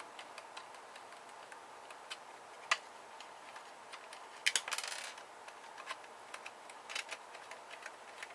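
Light clicks and taps of small tools and loose metal parts as an electronics box is taken apart by hand: scattered ticks, one sharper click about a third of the way in, and a short rattling scrape around the middle.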